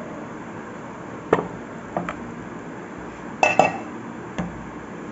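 Kitchenware being set down on the countertop: a few separate knocks, as when a round wooden rolling board is put in place, and a louder cluster of clatter with a short ringing metallic clink about three and a half seconds in.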